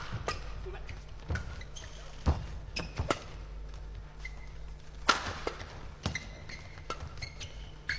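Badminton rackets striking the shuttlecock in a doubles rally: an irregular string of sharp hits, with short high squeaks in between.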